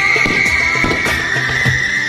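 Loud music playing, with a high held tone gliding slowly downward, while fireworks crack sharply several times.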